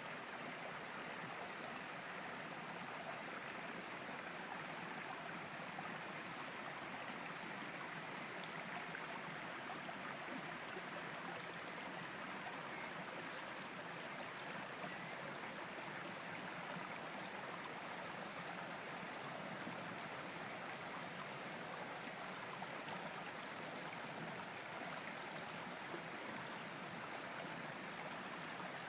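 A river or stream flowing steadily over rocks, an even rushing and babbling of water with no break.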